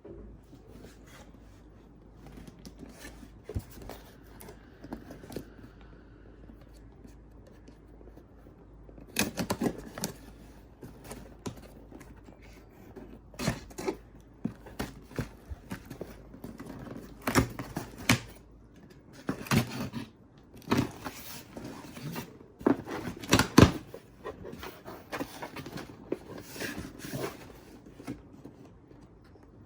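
A vinyl record's packaging being handled and opened by hand: irregular rustles, scrapes and sharp clicks. They are faint for the first few seconds and grow louder and busier about nine seconds in.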